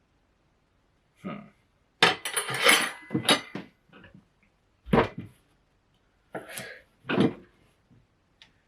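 Kitchen knife and cucumber knocking and clattering on a cutting board in irregular strokes: a quick cluster of knocks, then a heavier thud, then a few more.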